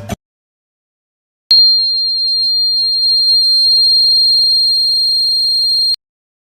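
Homemade rain alarm's buzzer sounding one steady, high-pitched beep for about four and a half seconds, starting and stopping abruptly: the alarm going off as its sensor detects water.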